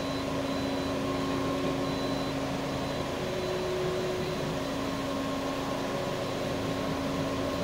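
Steady hum inside a car's cabin as it is driven slowly, with a few faint steady tones that drop out and come back.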